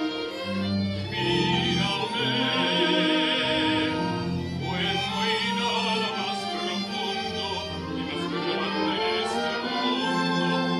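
A string orchestra playing held notes while a man sings over it in an operatic style.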